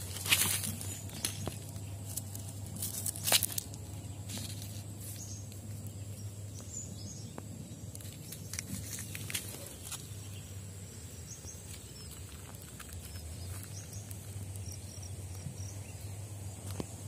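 Outdoor ambience with a steady low rumble and faint high chirps, broken by sharp clicks and knocks of footsteps on gravel and stones being handled. The loudest knocks come just at the start and about three seconds in.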